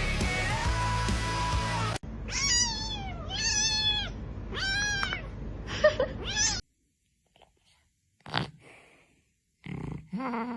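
Background music for about two seconds, then a cat meowing about five times in quick succession, each meow rising and falling in pitch. After a short quiet spell, another lower call comes near the end.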